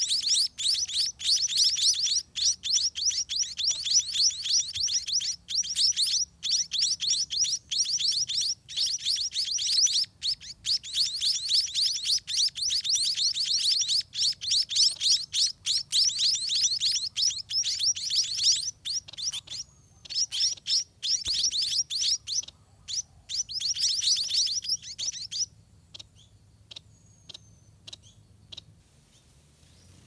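Scaly-breasted munia (spotted munia) nestlings begging to be fed by a parent: a dense, rapid run of high chirps. It breaks off about 25 seconds in, leaving a few scattered chirps.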